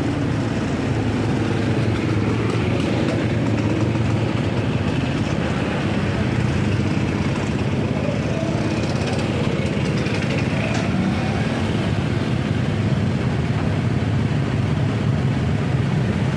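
Motorcycle engine running steadily at low speed, with other motorbikes' engines close by in slow traffic.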